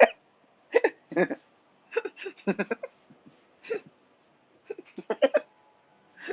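A person's voice in short, broken bursts with silent pauses between them.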